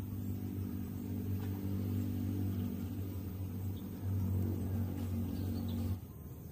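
Low steady engine hum that cuts off suddenly near the end.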